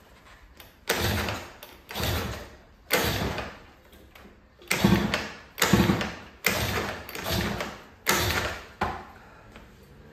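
Honda Dio AF34 50cc two-stroke scooter being kick-started about eight times in a row. Each kick spins the engine over in a short burst that dies away without the engine catching and running. The carburettor has just been cleaned of jets clogged by old, discoloured gasoline.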